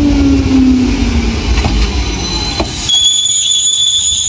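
Enshu Railway 1000-series electric train 1002F braking into a station: a whine falls in pitch as it slows over a heavy wheel rumble. About three seconds in the rumble drops away as the train halts and a steady high-pitched squeal sets in.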